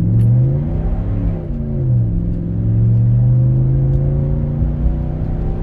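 Stock exhaust of a 2023 Ram 1500 GT pickup, which has a cold air intake, heard from inside the cab with the rear sliding window open as the truck pulls away. The engine note climbs, drops with an upshift about a second and a half in, then settles into a steady drone that slowly rises again.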